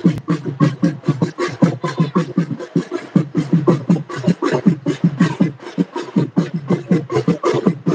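Fast, steady drumming, several strokes a second, the deep strokes each dropping in pitch.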